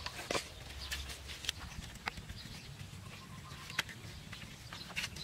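A wooden stake is struck once, hard, right at the start. After that come a few scattered light knocks and clicks of bamboo poles and slats being handled.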